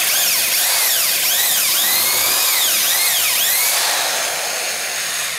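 Electric drill spinning an 80-grit flex hone inside a cast-iron exhaust manifold runner: an abrasive grinding hiss under a motor whine that rises and falls over and over. It eases off near the end.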